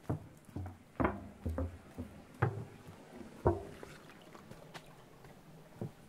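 Footsteps of a hiker walking on a trail: a run of irregular steps over the first three and a half seconds, then a pause and one more step near the end.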